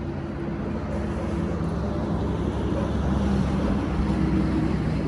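A motor vehicle engine running nearby with a steady low hum, swelling a little about three to four seconds in, as if a vehicle is passing or pulling close.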